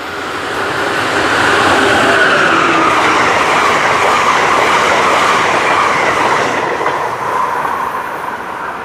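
Passenger train rolling past close by, the rumble and clatter of wheels on rail building to a loud peak and fading away, with a high squeal from the wheels.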